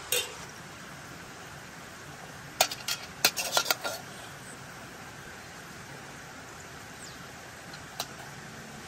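A metal serving spoon clinks and scrapes against a steel cooking pot and a metal serving dish as rice is served: one click at the start, a quick run of clinks about three seconds in, and a single clink near the end, over a steady background hiss.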